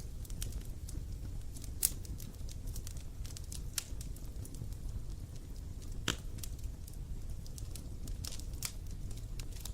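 Wood fire burning with a low rumble and irregular crackles and pops, a few sharper pops standing out.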